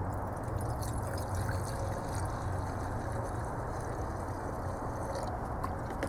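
Kerosene pouring in a thin stream from a plastic jug into a glass mason jar, stopping about five seconds in, over a steady low background rumble.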